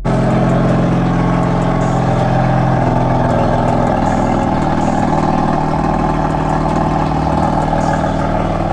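BMW F80 M3's twin-turbo straight-six engine idling steadily at the exhaust, warming up after being started.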